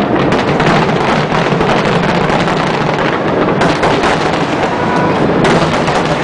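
Aerial fireworks in a dense barrage: continuous booming and crackling with many sharp reports, and fresh loud bursts about three and a half and five and a half seconds in.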